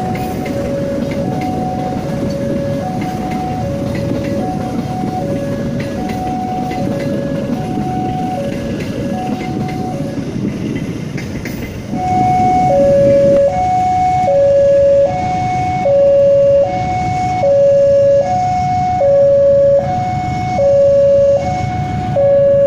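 A freight train's wagons rumble past, with a level-crossing warning alarm sounding its alternating high-low two-tone signal in the background. About 12 s in, the crossing alarm becomes much louder and clearer, each tone lasting under a second, as the train rumble dies away.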